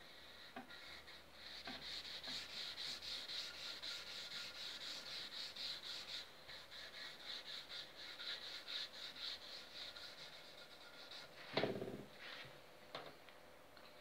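A gloved hand with a cloth rubbing dark stain into a mahogany bass guitar body, working it into the open wood pores with quick back-and-forth strokes, about three to four a second, that tail off in the last few seconds. Near the end comes a brief louder pitched sound.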